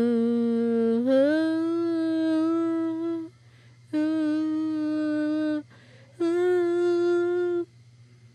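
A voice humming long, steady held notes: the first glides down, rises about a second in and is held, then two more held notes follow with short breaks between them.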